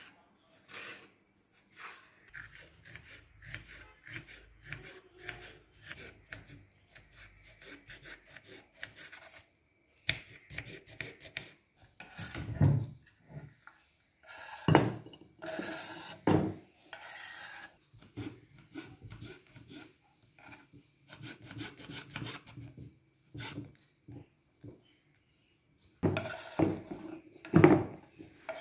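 A rosewood board being worked by hand with an abrasive tool: runs of short rubbing and scraping strokes on the wood, broken by a couple of brief pauses, with a few louder strokes now and then.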